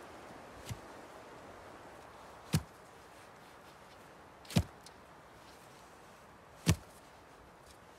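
A hatchet driving a wooden stake into forest soil: three sharp blows about two seconds apart, after a faint knock about a second in.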